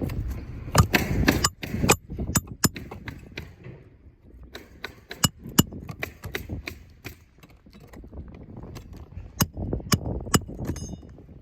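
Hammer striking a roofing nail snake to drive roofing nails under a lifted shingle: a long, irregular series of sharp metallic taps, some in quick groups, the odd strike ringing briefly.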